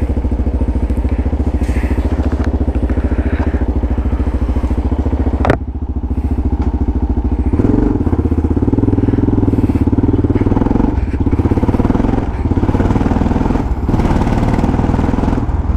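Yamaha XT600E's single-cylinder four-stroke engine running through an old Coyote aftermarket exhaust while riding, making noise. About five and a half seconds in there is a sharp click and a short dip. From about seven and a half seconds the engine pulls louder.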